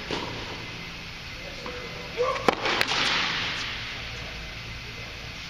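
Tennis ball struck by rackets in a rally: a sharp crack of the serve just after the start, then a louder cluster of sharp cracks about two and a half seconds in. The loudest crack is followed by about a second of echo in the indoor court's dome.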